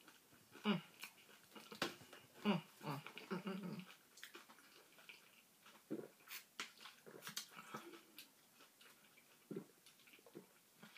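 Quiet eating sounds: chewing a corn dog, then swallowing while drinking from a plastic bottle, with scattered small mouth clicks.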